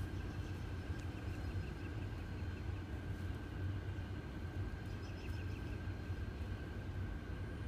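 Steady low rumble of outdoor background noise with a thin steady whine above it, and faint chirping twice, about three and five seconds in.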